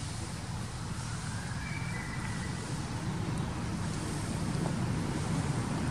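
Steady low rumbling background noise, with a faint, brief high whistle about two seconds in.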